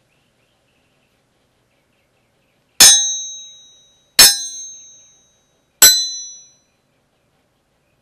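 Three metallic sword-clash clangs, about a second and a half apart, each ringing briefly after the strike. They are sword-fight sound effects.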